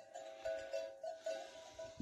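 Bell-like tones ringing over and over at an uneven rhythm, on two or three close pitches.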